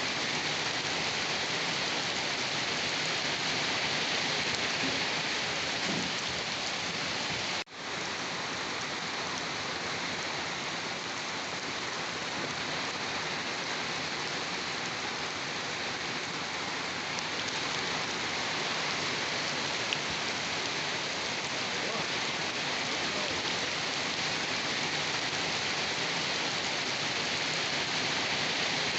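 Steady rain falling, an even hiss with no thunder heard. It drops out for an instant about eight seconds in.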